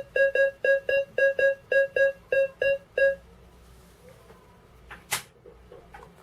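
AKA Berkut-5 metal detector giving its target tone for an early-Soviet two-kopeck coin passed over the coil: a steady-pitched beep repeating about four times a second, stopping after about three seconds. A single sharp click follows about five seconds in.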